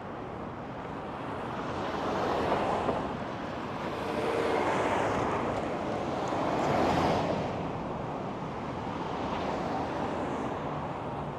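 City street traffic: several vehicles pass one after another, their engine and tyre noise swelling and fading.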